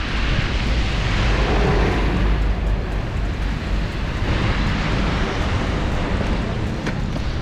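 Wind buffeting the camera microphone while riding a bike through falling snow: a steady, loud rush, heaviest in the deep low end.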